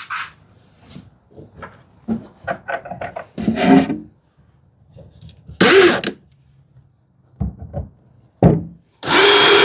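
Wooden pieces being set in place with light knocks and rubbing, then a cordless drill-driver running in a short burst about six seconds in and again near the end, driving screws into the shelf supports.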